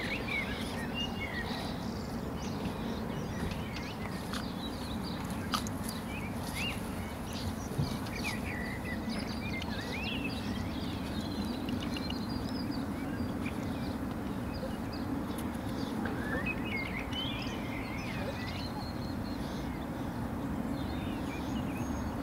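Outdoor ambience: small birds chirping on and off over a steady low rumble, with a few faint clicks.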